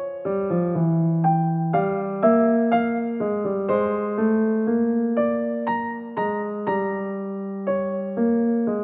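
Background music played on a piano-type keyboard: notes and chords struck every half second or so, each ringing and fading.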